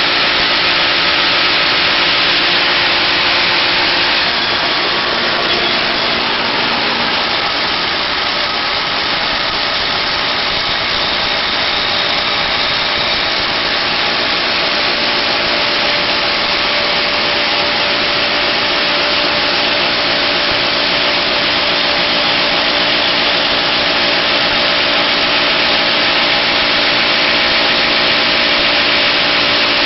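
The 世和機械 330A machine running steadily: a continuous motor noise with several steady tones. The level stays even.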